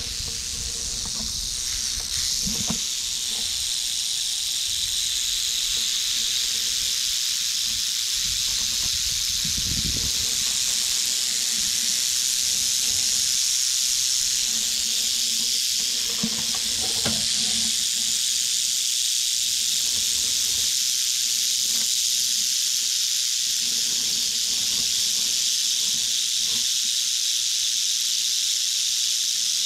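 Timber rattlesnake rattling in a steady, high buzz, the defensive warning of a snake agitated at being handled. A few low rustles and knocks come from the handling.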